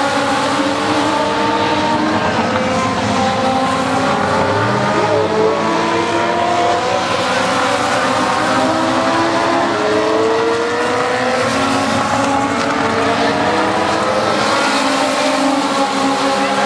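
A pack of Legends race cars circling the oval, their Yamaha motorcycle engines running hard. Several engine notes overlap and glide up and down as the cars pass and come off the corners.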